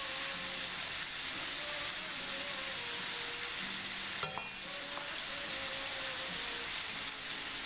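Steady sizzle of pork and pineapple frying in a pan, while a wooden spoon stirs a thickening sauce in a steel pot; one sharp clack about four seconds in.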